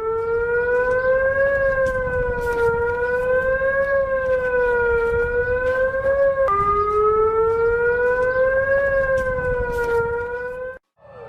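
Warning siren sounding a steady pitched tone that slowly rises and falls in a narrow wail, one swing every two to three seconds. The pitch drops back abruptly once midway, and the siren cuts off just before the end, over a low rumble and scattered crackle.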